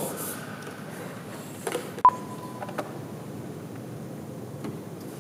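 Quiet room tone with a few small clicks and knocks; the loudest is one sharp click with a brief high ring about two seconds in.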